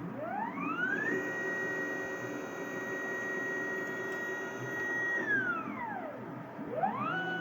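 Stepper motor of a CNC-converted EMCO Compact 5 cross slide table whining as the table traverses: the pitch rises as the motor speeds up, holds steady for about four seconds, falls as it slows to a stop, then rises again near the end as the next move starts.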